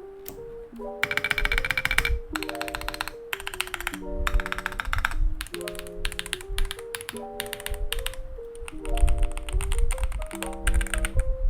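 Typing on a Keychron V2 mechanical keyboard fitted with White Jade switches and transparent MDA-profile PBT keycaps: fast runs of crisp keystrokes in bursts of about a second with short pauses between them.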